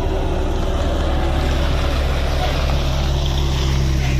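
Engine of heavy asphalt paving equipment running steadily with a low, unchanging drone.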